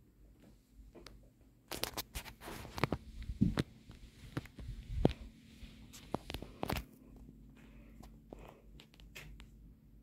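Knocks, rustling and clicks close to the microphone from about two to seven seconds in, the sound of the phone being handled and moved, over a faint steady hum from the ceiling fan running.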